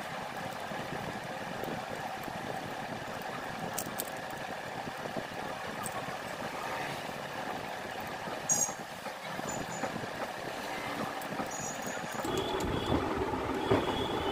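Socket wrench working the through-bolts out of a motorcycle self-starter motor: a few light metallic clicks and a sharper clink about eight seconds in, over a steady workshop hum. A louder low hum comes in about twelve seconds in.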